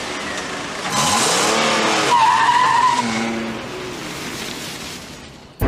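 A car accelerates hard away with the engine revving up and the tyres squealing for about a second, then fades off into the distance.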